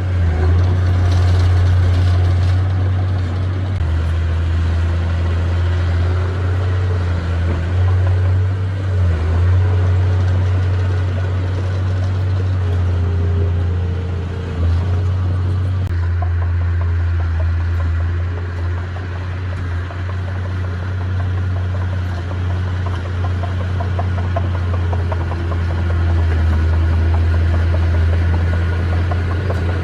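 Diesel engine of a heavy earthmoving machine running with a deep, steady drone. Its pitch and load shift every few seconds as the machine works.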